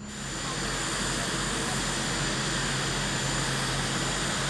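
Air Force One, a Boeing 747 (VC-25A), rolling on the tarmac with its four jet engines running: a steady rush of engine noise with a thin high-pitched whine over it.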